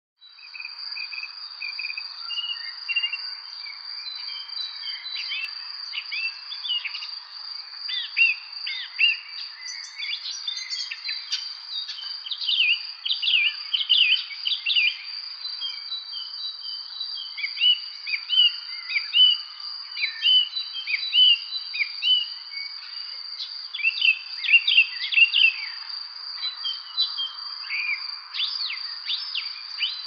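Songbirds singing, many quick chirps and trills, over an unbroken high-pitched insect drone. The birdsong gets busier about halfway through.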